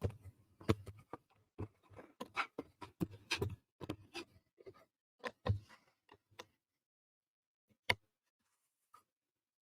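Thin wooden puzzle pieces clicking and tapping as they are handled, pressed out and fitted together: a quick run of small clicks and knocks for the first six seconds or so, then a pause and one sharp click about eight seconds in.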